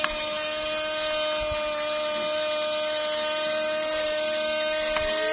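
Small battery-powered electric motor of a toy household appliance running with a steady high whine.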